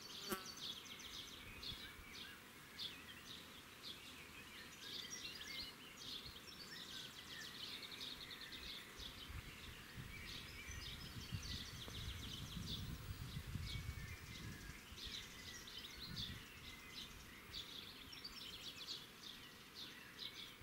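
Birds chirping and singing in the background of a quiet rural spot, with a sharp click just after the start and a low rumble for a few seconds around the middle.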